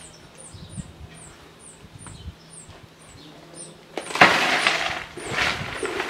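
Red granular bonsai substrate poured from a cardboard box onto the wooden boards of a shallow tray: a loud rushing rattle starts suddenly about four seconds in and comes in surges. A bird chirps throughout in short, high, falling notes about twice a second.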